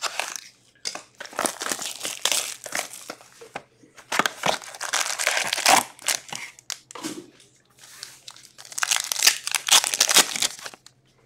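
Wrapper of an Upper Deck Artifacts hockey card pack crinkling and tearing as it is opened by hand, in irregular bursts of rustling with short pauses between.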